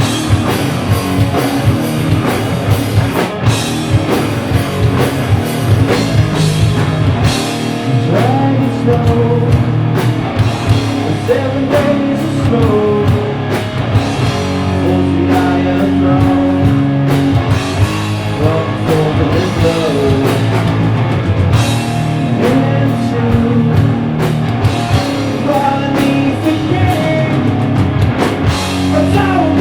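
Stoner rock band playing live: electric guitar, bass and drum kit, with a singer's voice over the riff.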